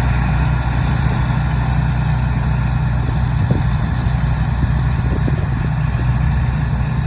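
Rice harvesting machine running steadily: a constant low engine drone under a broad mechanical hiss, with a few faint knocks.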